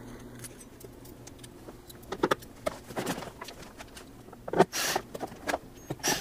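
Small screws clinking in a metal parts dish and a cordless drill-driver running in short bursts as screws are driven into the carpet cleaner's plastic housing. The loudest burst comes about two-thirds of the way in.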